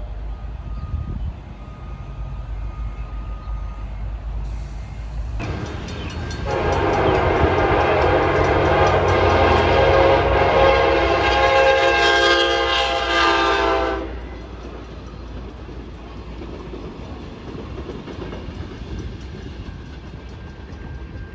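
Passing train with a locomotive air horn sounding one long chord blast of about eight seconds, starting about six seconds in, over the steady low rumble of the train, which carries on after the horn stops.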